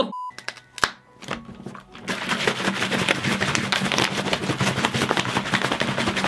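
A short steady test-tone beep. From about two seconds in, a plastic water bottle half full of energy-drink mix is shaken hard, the liquid sloshing in quick, dense strokes.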